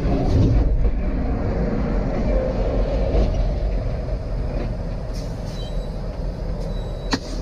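Heavy truck colliding with a box truck, heard from inside the cab: a dense low rumble with crashing and scraping, loudest in the first second. A sharp knock comes near the end.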